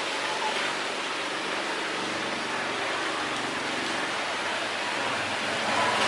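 Steady rushing of strong wind through tree foliage, an even hiss of leaves with no distinct calls.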